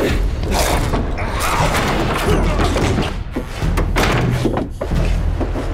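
Several heavy thuds and slams, a second or more apart.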